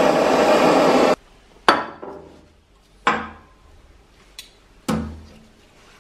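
Gas torch flame hissing steadily, cutting off suddenly about a second in; then three sharp metallic knocks, each with a short ring, as the brass fitting knocks against the steel table.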